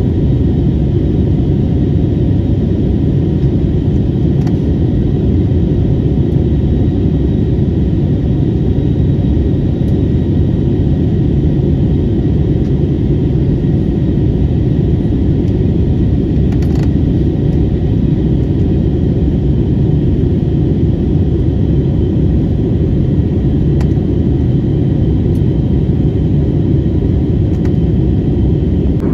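Steady cabin noise of a jet airliner in flight: a loud, even rumble of engines and rushing air, with a faint steady high whine above it.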